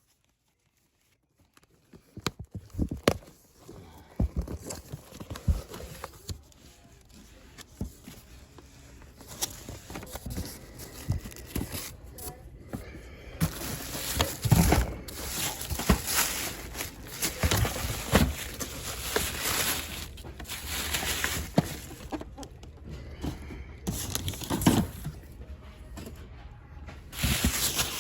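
A cardboard case of blister-packed die-cast cars being opened and gone through: tearing, rustling and irregular plastic knocks. It starts near silent, and the handling grows busier and denser about halfway through.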